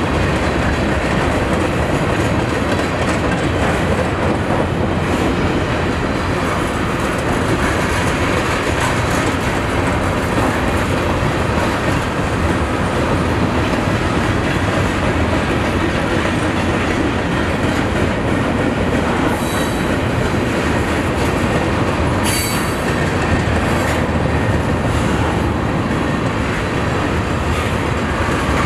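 Freight train of flatcars loaded with trash containers rolling past: a steady rumble of wheels on rail with clickety-clack over the rail joints. Two brief wheel squeals come about two-thirds of the way through.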